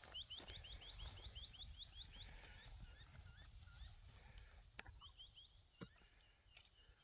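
Faint outdoor quiet in which a bird chirps in a quick run of short, high notes, about five a second, for a couple of seconds, then calls more sparsely; two soft clicks come near the end.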